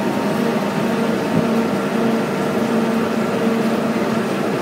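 Tram moving: a steady drone of its drive with a low hum, over road and wind noise.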